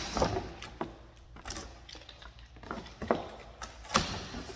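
Cardboard shipping box being opened: tape cut and the flaps pulled apart. Scattered scrapes and taps, with a sharp click about four seconds in.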